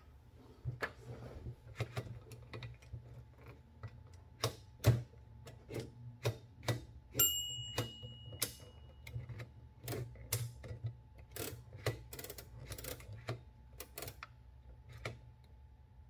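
Clicking and ratcheting of a 1919 Oliver No. 9 typewriter's carriage and roller, moved by hand in irregular clicks while a pen clamped in its line-drawing ring traces lines on the paper. A short high ring sounds about seven seconds in.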